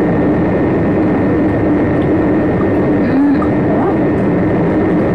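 Steady loud machine drone with a low hum underneath, even in level throughout.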